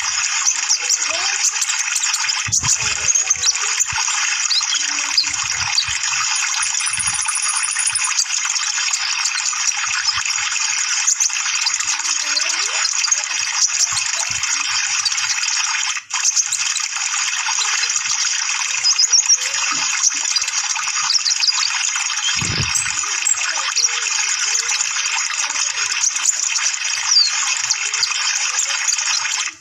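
Steady rushing water with many quick, high bird chirps over it: a birdsong lure track played to set a caged konin singing. The sound drops out for a moment about halfway through.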